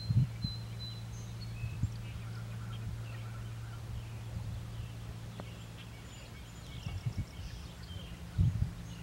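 Birds calling faintly with short high chirps over a steady low hum. A few low thumps come just after the start and again near the end.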